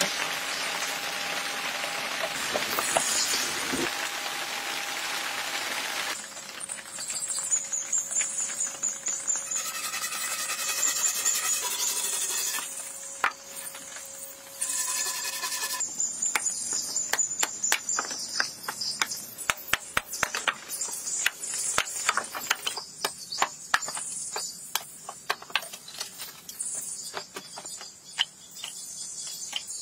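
Hand-tool work on wood and bamboo. A steady scraping hiss runs for the first six seconds, then comes a stretch broken by short high-pitched squeaks, and the second half is many irregular sharp taps and knocks from cutting and hammering.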